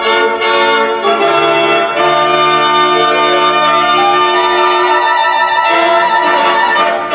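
Brass music playing long held chords that shift a few times.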